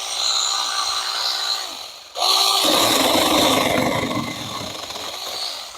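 Rechargeable Saker 6-inch mini electric chainsaw cutting through a branch: a steady motor whine under the rasp of the chain biting into wood. The sound cuts off abruptly about two seconds in, comes back louder, and fades away near the end.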